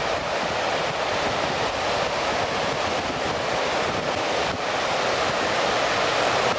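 Surf breaking and washing up onto a stony beach in a steady rush, with wind buffeting the microphone.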